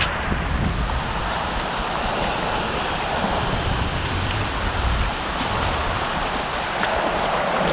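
Surf breaking and washing up a sandy beach in a steady hiss, with wind buffeting the microphone in uneven low rumbles.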